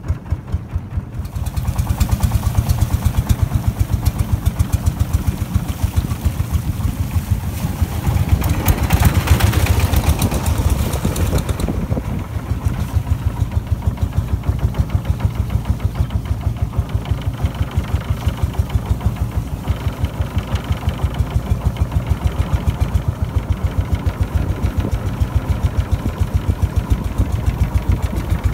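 Engine of a wooden motorboat running under way, a steady rapid thumping beat. It gets louder about a second and a half in, and a hiss rises over it from about eight to eleven seconds in before it settles back to a steady run.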